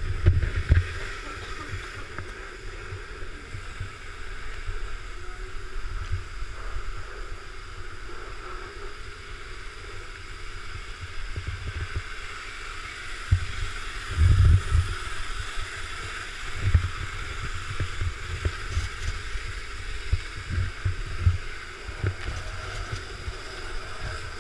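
Car-wash pressure-washer lance spraying water over a car: a steady hiss of the jet, with irregular low thuds as water and handling knock near the camera, the heaviest about fourteen seconds in.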